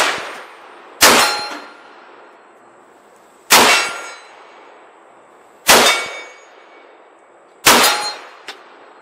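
Four shots from a 7.62x39 AK pistol, about two seconds apart, each followed by the clang and ring of a steel silhouette target being hit.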